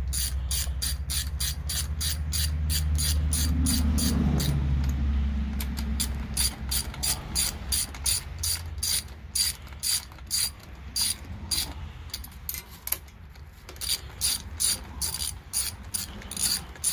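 Hand socket ratchet clicking in quick bursts as it runs the intake manifold bolts down snug on a small-block V8 before torquing. A low rumble runs underneath for the first several seconds.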